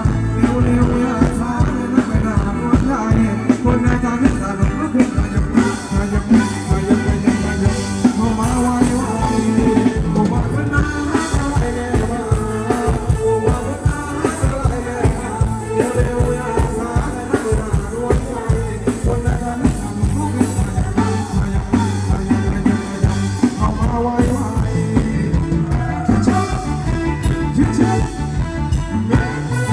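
Live band playing Thai ramwong dance music, with a singer over a steady drum beat, loud through the PA.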